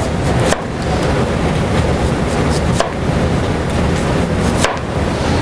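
Chef's knife slicing a red onion on a plastic cutting board: a few irregular sharp taps of the blade against the board, over a loud steady rushing background noise.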